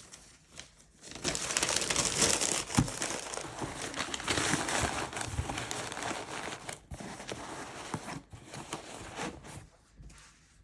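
Packaging material crinkling and rustling as it is handled, with small clicks and taps mixed in. It is loudest a few seconds in and thins out near the end.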